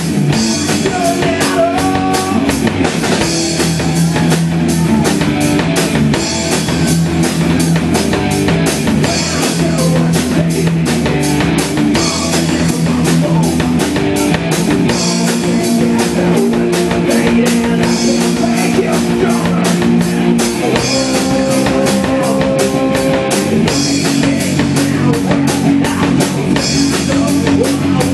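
Rock band playing live: electric guitars holding chords over a fast, steady drum-kit beat.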